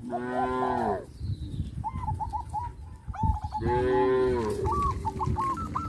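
Cows mooing: two moos about a second long each, one at the start and one about two-thirds of the way in. Short chirping bird calls repeat between them.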